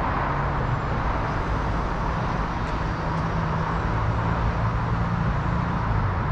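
Steady wash of highway traffic from the Don Valley Parkway below the lookout: continuous tyre and road noise with a low engine drone underneath.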